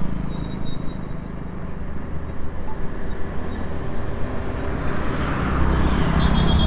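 Motorcycle engine running while riding, under a steady rush of wind and road noise, its rumble getting louder about five and a half seconds in. A short high pulsing beep sounds near the end.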